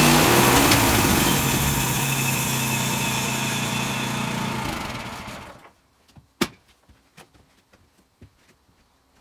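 Sawmill's small gasoline engine being shut off: its steady running breaks up and dies away over about five seconds. A few faint clicks and one sharp click follow.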